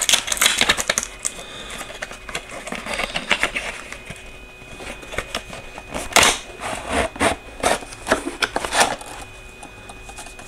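Product box being opened by hand and its packaging handled: a run of clicks, scrapes and rustles, thickest at the start and again from about six to nine seconds in.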